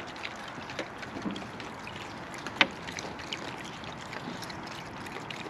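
Raccoons foraging in a plastic kiddie pool: scattered small clicks and crunches as they handle and chew crunchy cereal, with one sharper click about two and a half seconds in, over a steady background hiss.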